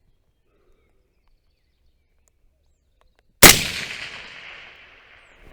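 A single shot from a suppressed AR-15 short-barrelled rifle firing 5.56 ammunition, about three and a half seconds in, its echo dying away over about two seconds.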